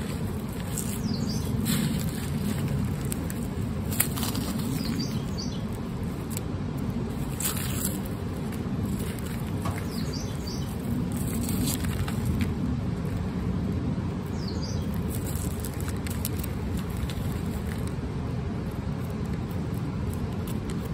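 Dry, papery garlic skins rustling and crackling in scattered bursts as fingers peel the soil-caked outer layers off a freshly dug garlic bulb. Under it runs a steady low rumble, and a few short, faint bird chirps come through.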